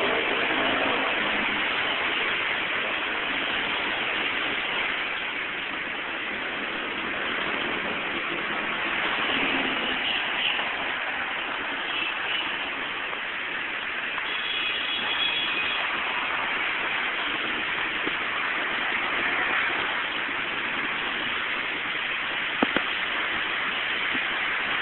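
Steady hiss of heavy rain mixed with traffic passing on a wet road, with a couple of brief clicks near the end.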